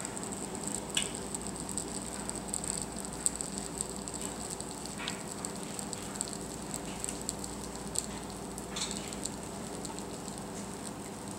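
Rice-flour and coconut-milk pizzelle batter cooking in a closed electric pizzelle iron: a steady sizzling hiss as steam escapes, with scattered crackling pops.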